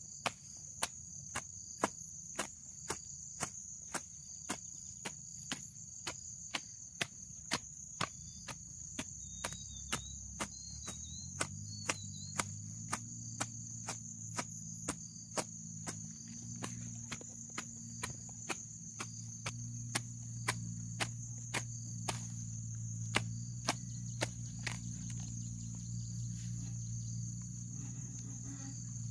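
Hoe blade chopping into grassy soil in a steady rhythm of about two strokes a second, which stops a few seconds before the end, over a continuous high drone of crickets.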